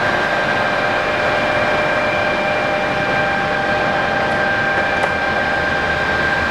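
Mori Seiki MS850G geared-head engine lathe running steadily under power, a steady mechanical hum with a fixed high whine over it.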